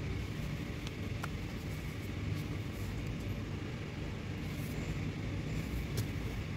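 Steady low background rumble, with a few faint plastic clicks as the steering-wheel switch panel is pressed down into place in the wheel. The sharpest click comes near the end.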